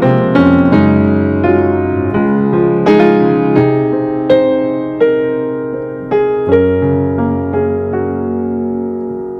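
Background piano music: a gentle melody of struck notes that ring and fade, with sustained bass chords.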